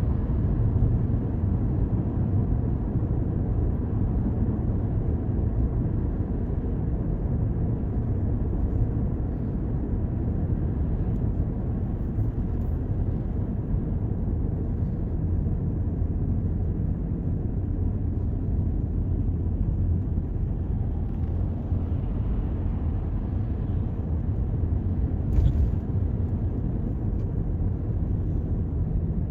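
Toyota Corolla driving through city streets: a steady, low rumble of road and engine noise. There is a brief click about 25 seconds in.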